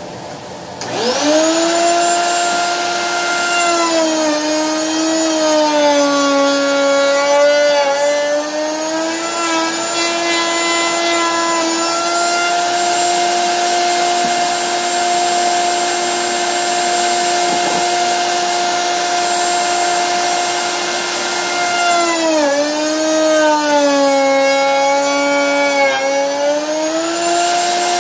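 Router in a router table starts up about a second in, its whine rising to full speed. The pitch sags twice for several seconds as the bit cuts handle recesses into a wooden cutting board, then comes back up to a steady whine.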